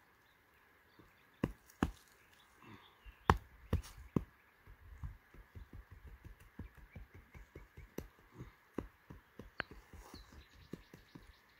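Bare hands patting and pressing down loose, dry soil on a mound of earth. A few sharp slaps come in the first four seconds, then a long run of quicker, softer pats.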